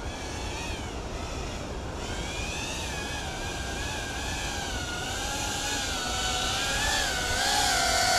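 FPV quadcopter's electric motors and propellers whining, the pitch wavering up and down with the throttle, growing louder toward the end.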